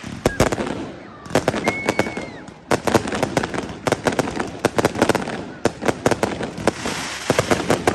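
Fireworks going off: rapid bangs and crackles that come thickest in the middle, with a short whistle about two seconds in.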